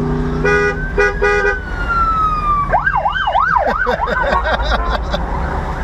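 A vehicle horn gives three short toots, then a siren sounds: a tone sliding down, then about a second of fast up-and-down yelping. Steady car engine and road noise run underneath.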